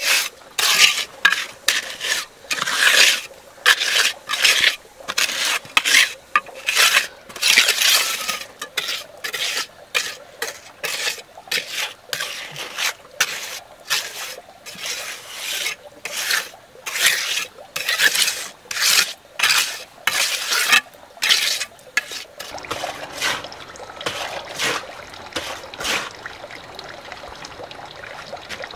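Steel trowel scraping and spreading wet cement mortar over a stone wall in short repeated strokes, about one or two a second. The strokes stop about three-quarters of the way through, leaving quieter background sound.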